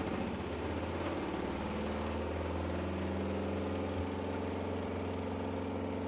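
Spin-dryer tub of a Haier 7 kg semi-automatic twin-tub washing machine spinning at speed: a steady motor hum with a higher whine that rises slightly, as it spins the soapy water out of the clothes during a rinse spin.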